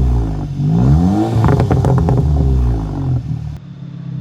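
Audi S3 8V's turbocharged 2.0-litre four-cylinder revved in neutral: the revs climb about half a second in and fall back, with a burst of exhaust crackles and pops on the overrun. The pops-and-bangs function of its Dynamic mode is active. The engine settles to idle near the end.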